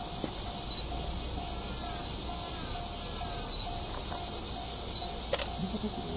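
Insects buzzing steadily in high, pulsing tones, with a short electronic beep repeating about twice a second and one sharp click about five seconds in.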